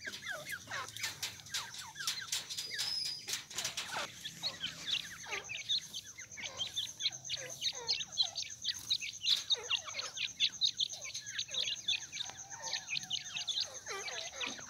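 A flock of young game birds peeping with many quick, short, falling chirps. A steady high-pitched buzz joins about five seconds in.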